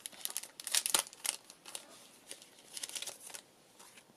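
Clear plastic packet crinkling and rustling in the hands as it is opened and a stack of small paper labels is slid out, in two busy clusters of sharp crackles about half a second to a second and a half in and again around three seconds in.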